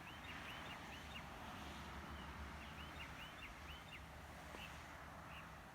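Faint bird calls: short, high chirps repeated several a second in two runs, over a steady low rumble.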